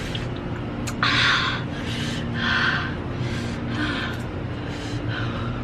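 A person breathing hard through the mouth, about five sharp hissing breaths, the first and loudest about a second in: a reaction to the burn of very spicy noodles. A steady low hum runs underneath.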